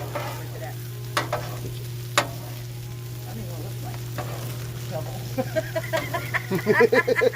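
Brussels sprouts and bacon sizzling on a 22-inch Blackstone flat-top griddle, with a metal griddle spatula striking and scraping the steel cooktop three times in the first couple of seconds as the food is stirred. Near the end a louder, pitched chattering sound rises over the sizzle.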